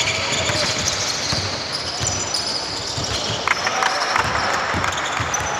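Basketball bouncing on a court during a game: repeated low thuds at an uneven pace, with voices in the background.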